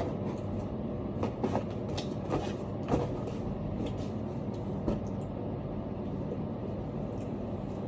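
Steady low rumbling background noise, with a few light clicks and taps scattered through the first half.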